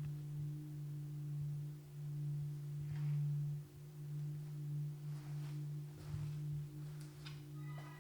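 Steady low electrical hum with a fainter overtone, broken by a few faint soft knocks; near the end a cluster of higher steady tones comes in.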